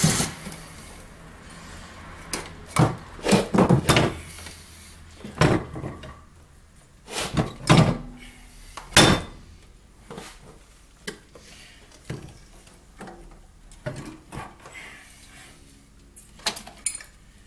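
Irregular knocks and clunks with scraping in between as a snowmobile engine is lowered and shifted into place in the sled's chassis, metal parts bumping together; the loudest knocks fall in the first half.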